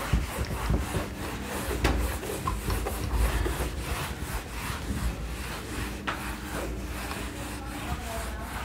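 Cloth duster wiping marker off a whiteboard: repeated rubbing strokes.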